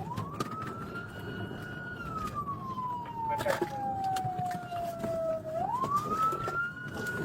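Police siren on a slow wail: it rises at the start, holds high, sinks slowly over about three seconds, then climbs again near the end, over the road and engine noise of the moving patrol car.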